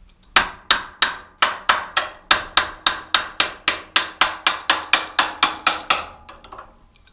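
A hammer striking metal in a fast, even run, about four blows a second, stopping about six seconds in. The blows are knocking the motorcycle's steering stem loose so the front fork drops out of the headstock.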